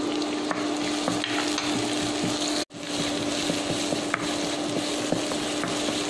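Sliced shallots and scallion stems sizzling in hot annatto oil in a wok, stirred with a wooden spatula that scrapes and ticks against the pan, over a steady low hum. The sound cuts out for an instant about halfway through.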